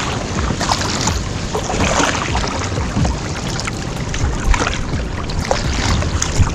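Sea water slapping and splashing irregularly against a kayak's hull, over a steady rumble of wind on the microphone.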